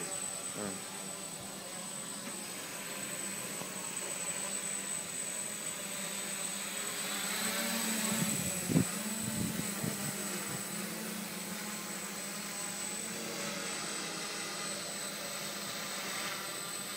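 Hobby multirotor drone's propellers and motors buzzing steadily as it climbs and hovers overhead. The sound grows louder as it passes close, with one sharp thump a little past halfway.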